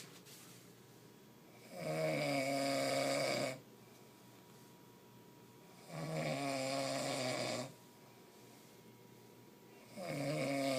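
A man snoring in his sleep: three long snores about four seconds apart, each lasting under two seconds, with quiet between them.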